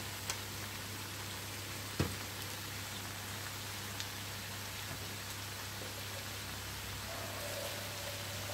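Sauerkraut sizzling in a frying pan over a gas flame, a steady even hiss. A single sharp knock comes about two seconds in.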